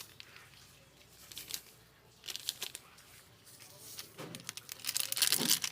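Plastic packet of MSG crinkling and rustling as it is handled, in irregular clusters of crackles that are loudest near the end.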